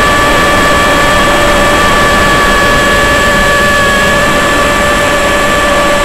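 Model aeroplane's motor and propeller running at a steady cruise, a constant whine over a rush of wind, heard from a camera mounted on the aircraft.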